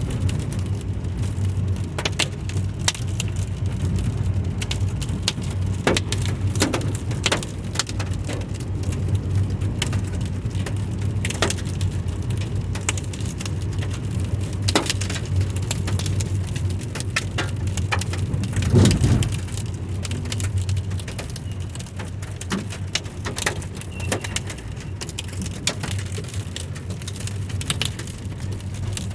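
Falling volcanic stones from Etna's eruption striking around, an irregular scatter of sharp clicks and knocks over a steady low rumble. A louder low swell comes about nineteen seconds in.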